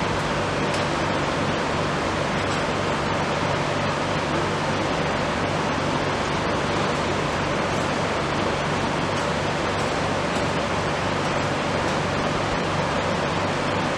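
Steady, even rushing noise with a low hum underneath, which fits the compressor and fan of a running fried ice cream roll machine chilling its pan.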